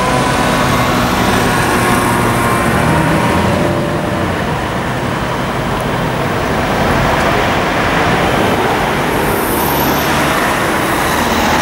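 Mercedes-Benz SLS AMG's V8 running at low revs as the car moves slowly in traffic, mixed into loud, steady city traffic noise.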